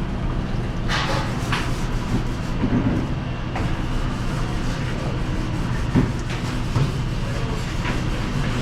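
Steady low machine hum with scattered clinks and clatter of dishes being handled.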